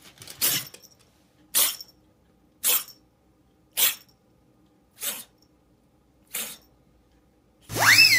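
Grey tabby kitten making six short, breathy bursts of sound about a second apart, the last two fainter. Near the end a loud whistle swoops up sharply and then glides down.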